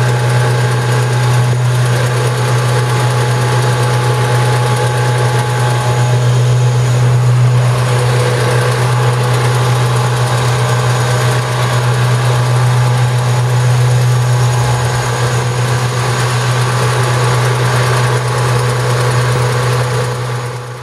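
Steady low engine drone from a Stripe Hog water-blasting line-removal truck running in place, with street traffic passing.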